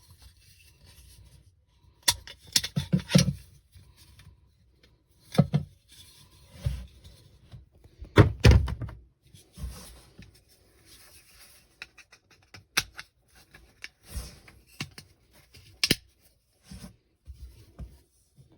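Irregular knocks, clicks and thunks of a twin-tub portable washing machine's parts being handled and fitted back into place. The loudest bunches come about two seconds in, around eight seconds in and near the three-quarter mark.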